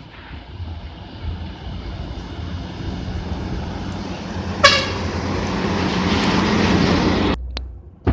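A heavy road vehicle's engine running as it passes, growing louder from about three seconds in, with one short horn toot about four and a half seconds in. The sound cuts off abruptly near the end.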